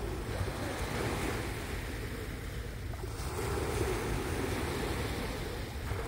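Small sea waves washing onto a sandy beach, the wash swelling near the start and again about three seconds in, with wind rumbling on the microphone.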